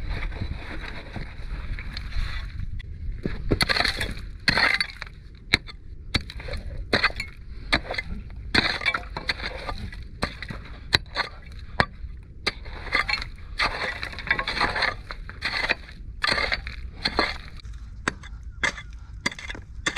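Metal digging tools striking, chipping and prying at shore rocks, breaking them open to reach rock worms burrowed inside: irregular sharp clinks and knocks, often several in quick succession, with stone scraping and clattering in between.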